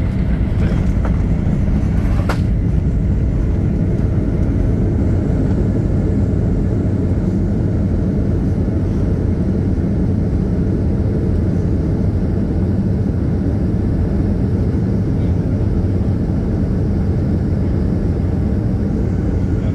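Steady low rumble inside an airliner cabin as the plane rolls and taxis after landing, with a single sharp click about two seconds in.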